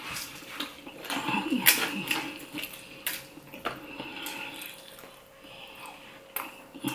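Close-up chewing and wet mouth sounds of someone eating fried flounder, broken by a few sharp clicks.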